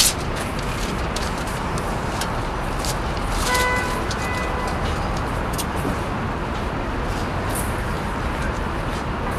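Steady city street traffic noise, with a short pitched toot about three and a half seconds in.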